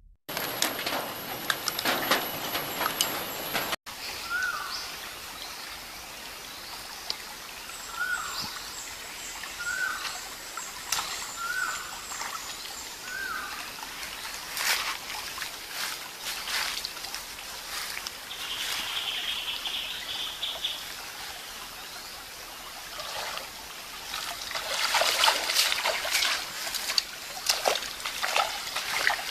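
Shallow stream trickling over stones, with splashes as a person wades through the water barefoot, heaviest near the end. A bird gives a short falling call about five times, each about a second apart.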